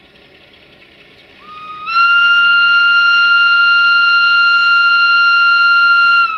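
Whistle of a Romanian 060-DA (LDE2100) diesel-electric locomotive, known for its whistle, sounding one long, loud, steady blast of about four seconds. It comes in softly and a little low about a second and a half in, then cuts off sharply just before the end. Before the blast, the diesel engine is faint.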